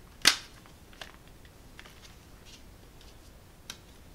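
A plastic CD jewel case snapping open: one sharp click just after the start, then two faint plastic clicks as the case is handled.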